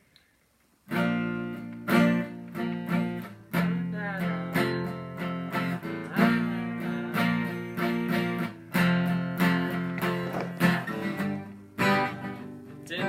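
Music: acoustic guitar strumming chords in an instrumental intro, starting about a second in.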